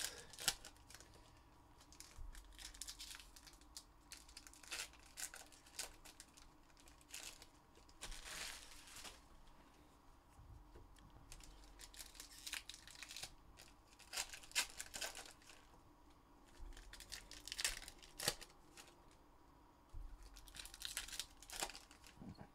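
Foil wrappers of 2021 Upper Deck Goodwin Champions trading-card packs being torn open and crinkled by hand, in short, scattered rips and rustles.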